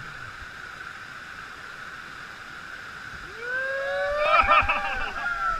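Whitewater of a river waterfall rushing steadily; about three and a half seconds in, several onlookers break into loud whooping and yelling, their voices sliding up and down.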